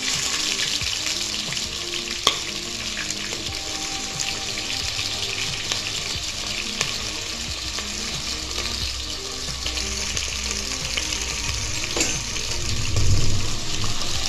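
Chopped onion hitting hot oil with mustard and cumin seeds in an aluminium pressure cooker, sizzling loudly the moment it goes in and then frying steadily as it is stirred with a metal spoon. There is one sharp knock about two seconds in.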